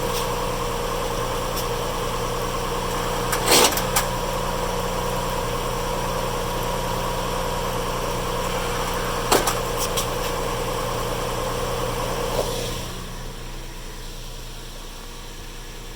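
Nissan Xterra running with the drivetrain in four-wheel low and still cold, making the grinding noise that the owner is recording. A few short clunks come through about three and a half and nine and a half seconds in, and the sound drops to a quieter steady hum about twelve seconds in.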